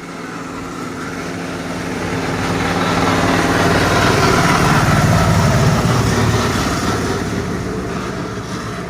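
A motor vehicle's engine passing close by, growing louder to a peak about halfway through and then fading away.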